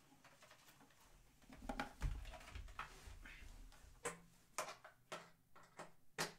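Faint handling noise from audio gear being moved while a speaker is swapped out: light rustling and clicks, a dull thump about two seconds in, then several sharp clicks and knocks near the end.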